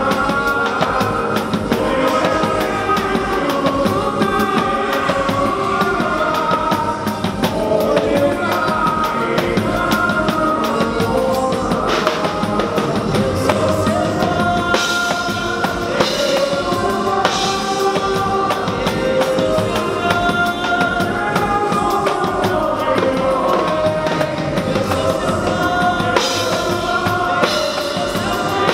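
Live pagode song: two male singers trading lines over cavaquinho, bass guitar and a drum kit keeping a steady beat.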